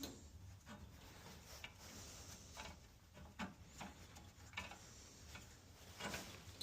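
Faint, irregular light clicks and taps, about seven of them, from handling and adjusting the metal blade-guide parts of a small bandsaw that is not running.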